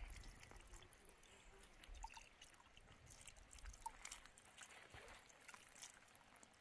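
Near silence, with faint scattered small clicks and handling noises.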